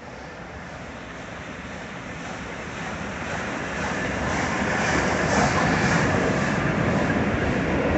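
Flying Scotsman, an LNER A3 class steam locomotive, approaching with its train at a gathering pace; the rumble of the train grows steadily louder for about five seconds and then holds steady as it draws near.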